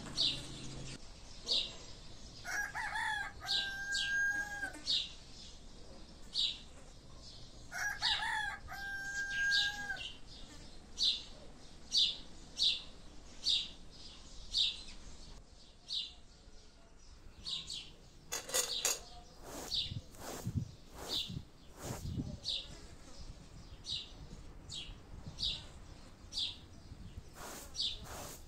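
A rooster crows twice, a few seconds apart, each crow rising and then held long. A small songbird chirps over it, about one short high chirp a second.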